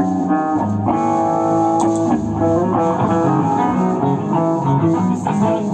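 Amplified electric guitars playing a heavy riff of held, changing chords through the whole stretch.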